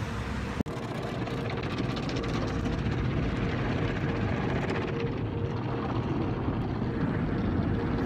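Steady low rumble and hiss of a vehicle heard from inside the car's cabin.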